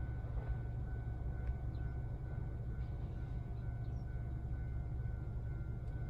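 Steady low vehicle rumble with a faint constant high whine above it.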